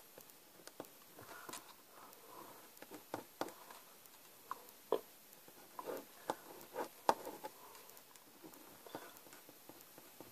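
Pen drawing on a small slip of paper on a tabletop: faint, irregular scratching strokes and small tapping clicks.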